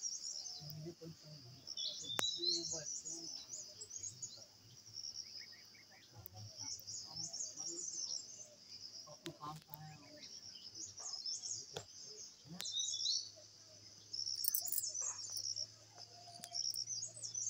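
Small birds chirping in repeated short bursts over a steady high-pitched drone of insects, with a few sharp clicks.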